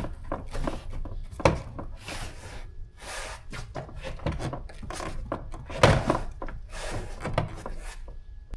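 Car door trim being handled and fitted during reassembly: irregular plastic knocks, clicks and rustling, with two sharper knocks, one about a second and a half in and another about six seconds in.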